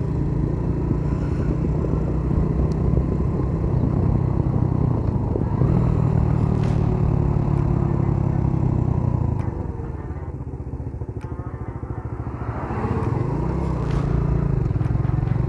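Motorcycle engine running under way at steady throttle. About ten seconds in it eases off and goes quieter for a few seconds, then picks up again.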